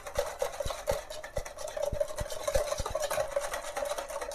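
Sifted flour being tipped from a bowl into a mixing bowl, with irregular small knocks and scrapes of the bowl against the rim, several a second, over a steady hum.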